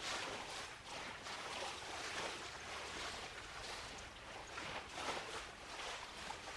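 Small waves washing onto the shoreline in a run of soft, uneven swooshes, about one or two a second.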